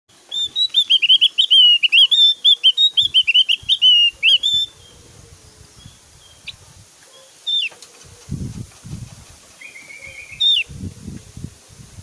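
Javan grey-throated white-eye (opior Jawa) singing: a loud, rapid run of short high whistled notes for about four seconds, the fast 'tembakan' (shooting) phrase. It is followed by a few single notes and one short buzzy trill. Low thumps come twice near the end.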